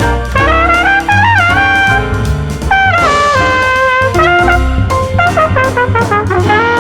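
Jazz band playing instrumentally: a trumpet solo line, bending and sliding between notes, over bass and drums.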